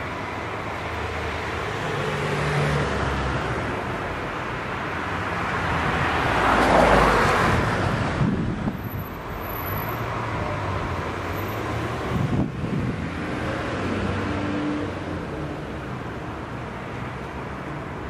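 Street traffic: cars driving past on a suburban road, the noise swelling to its loudest as one passes close about seven seconds in, with a shorter rise a few seconds later.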